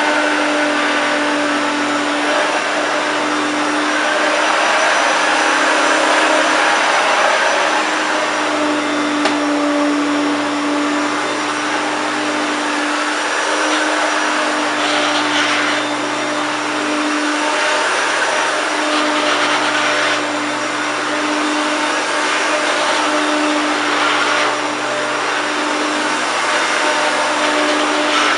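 1993 Hoover Turbopower 1 U2798 upright vacuum cleaner running steadily, its motor hum wavering slightly in pitch and strength. The owner says it still sounds rough, despite mostly new parts.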